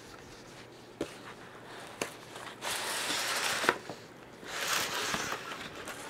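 Cardboard retail box being opened by hand: a couple of sharp clicks, then two stretches of rustling and scraping as the packaging is worked and the moulded pulp tray is pulled out.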